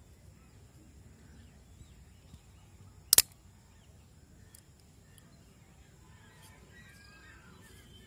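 Columbia RE102 folding knife's blade snapping open and locking: one sharp metallic double click about three seconds in.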